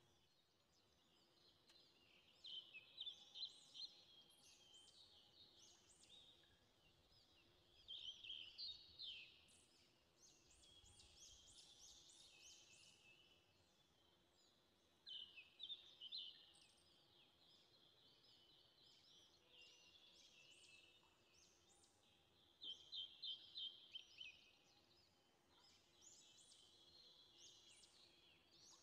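Faint birdsong: short phrases of quick, high chirps recurring every few seconds, over a faint steady hum.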